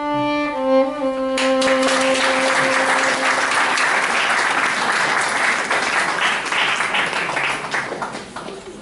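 A solo violin ends on a long held note. An audience starts applauding about a second and a half in, over the note, and the applause fades out near the end.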